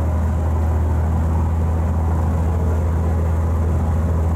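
Water bus under way: its engine drones deep and steady at cruising speed, over the rush of water churned up in its wake.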